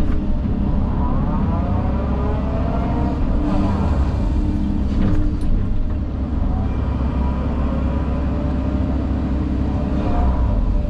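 Engine of a heavy earthmoving machine running steadily under load, with a whine that glides up and down in pitch as the machine works, once in the first few seconds and again in the second half.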